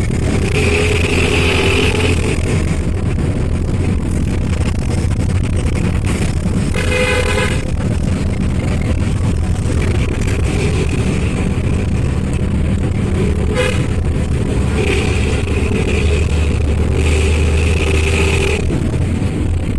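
Hino AK3HR diesel bus engine running, its exhaust giving a steady low snoring rumble ("knalpot ngorok"). A horn sounds for under a second about seven seconds in, and a briefer blip near 14 seconds.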